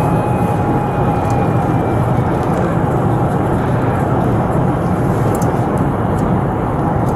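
Patrol car being driven at speed: a steady rush of engine, tyre and wind noise heard from a body camera inside the cabin.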